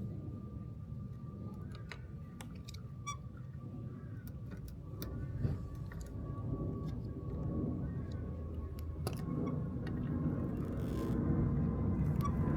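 Handling noise with scattered light clicks, over a steady low rumble and a faint steady high tone.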